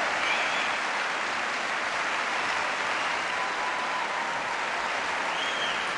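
Crowd applauding steadily in an indoor tennis arena, with a faint whistle near the start and another near the end.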